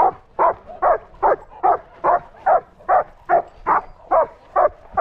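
Dog barking in a steady, even rhythm, about two to three barks a second.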